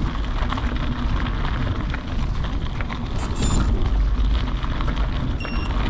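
Wind rumbling on the microphone, with faint scattered crunches and ticks, and two brief high-pitched chirps, one about three and a half seconds in and one near the end.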